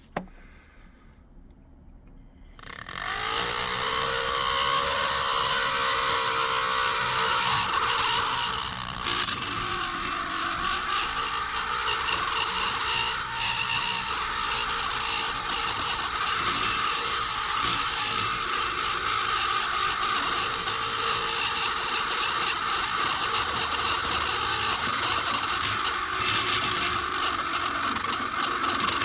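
Rotary tool spinning a burr and grinding metal inside a chainsaw cylinder's transfer port, porting it out. The tool starts about two and a half seconds in and then runs steadily with a high, gritty whine.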